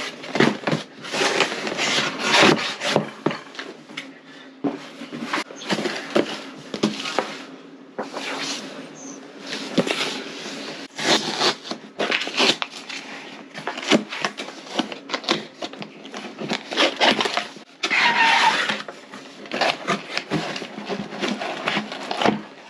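A cardboard box being opened and its packaging handled: irregular rubbing, scraping and rustling in bursts.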